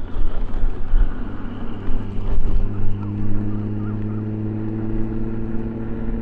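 Road noise heard while riding an electric unicycle: a gusty low rumble on the microphone, joined about two seconds in by a steady droning hum of nearby vehicle traffic.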